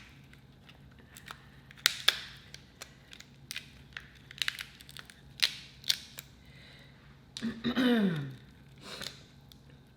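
Close-miked eating of seafood boil shellfish: scattered sharp cracks and snaps of shell being broken and bitten, with wet tearing in between. A short hum falling in pitch comes from the eater about eight seconds in.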